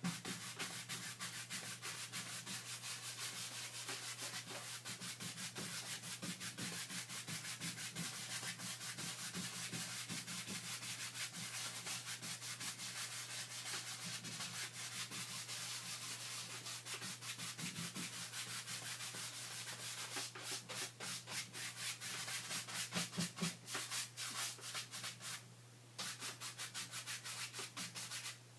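Rapid back-and-forth rubbing strokes on a surface, several a second, with a brief pause near the end. A steady low hum runs underneath.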